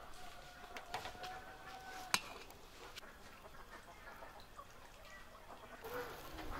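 Metal kebab skewers clinking against the steel charcoal grill as they are laid over the coals, with one sharp clink about two seconds in the loudest. A chicken clucks in the background.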